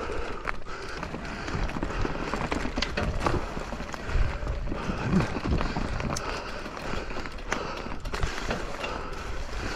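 Mountain bike riding over a rough, rooty trail: steady noise, strongest low down, with many irregular knocks and rattles from the bike.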